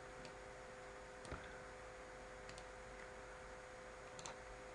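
A few faint computer mouse clicks, spaced out, with a quick pair near the middle and another pair near the end, over a steady faint hum.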